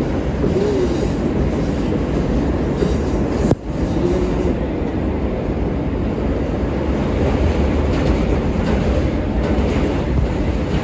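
R143 subway train running between stations, heard from inside the car: a steady, loud rumble of wheels on rail with faint whining, and a momentary drop in the sound about three and a half seconds in.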